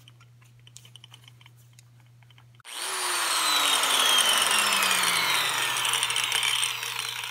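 Corded angle grinder fitted with a new metal cutting wheel, switched on about two and a half seconds in and spun up for a test run: a loud whine whose pitch falls steadily, easing off near the end. Light handling clicks come before it.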